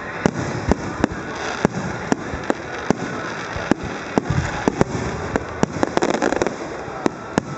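Aerial fireworks shells bursting in a series of sharp bangs, about two a second, over a steady rumble. About six seconds in, a dense run of crackling pops joins them.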